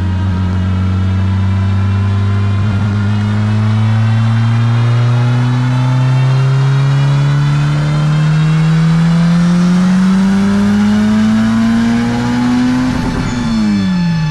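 Turbocharged Honda D16 single-cam four-cylinder making a full-throttle pull on a chassis dyno at about 20 psi of boost. The engine note climbs steadily in pitch for about ten seconds, then drops sharply near the end as the throttle is closed. The air-fuel ratio held good on this run.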